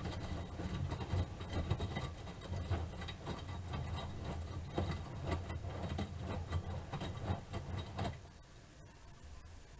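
Miele Softtronic W3923 front-loading washing machine washing: the drum turning the laundry with a low rumble and irregular sloshing and knocking of wet washing. The drum stops about eight seconds in, leaving a quieter pause.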